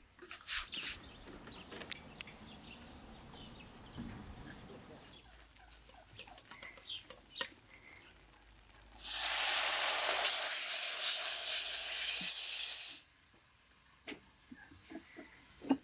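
A steady stream of water pouring for about four seconds, starting and stopping abruptly. Before it come faint scattered clicks and rustles.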